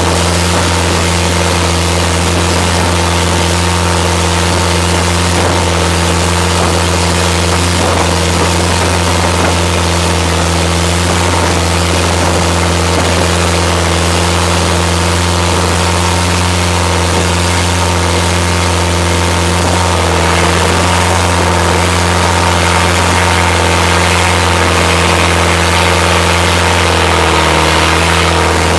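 Motorboat engine running steadily at speed, a constant low drone, over the rush of water spray and wind along the hull. The engine note dips slightly near the end.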